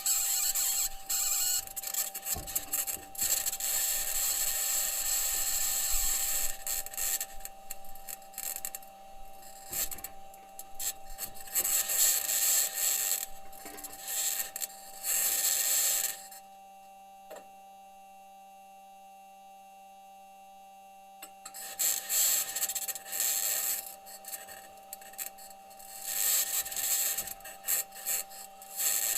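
Perseverance rover's aluminium wheels grinding and scraping over Martian rock as it drives, picked up by its onboard microphone, over a steady high tone and a low hum. The scraping stops for about five seconds midway, leaving only the tones, then resumes.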